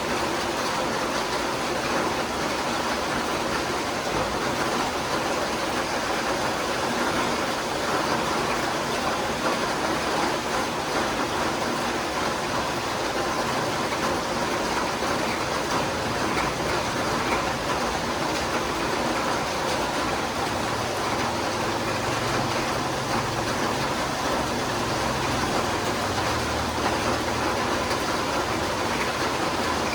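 Steady rain falling, an even, continuous patter with no thunder or wind. A faint low rumble joins underneath about two-thirds of the way through.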